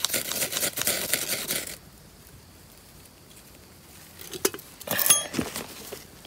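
Dry grass rustling and crackling as it is handled and pressed into a bird's-nest tinder bundle: a dense spell of crunching for the first couple of seconds, then a second, shorter burst near the end with a small sharp tick.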